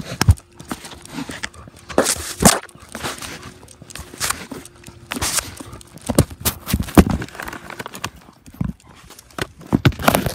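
Irregular knocks, scrapes and rubbing right on the microphone as something presses against and jostles the camera, with no steady rhythm.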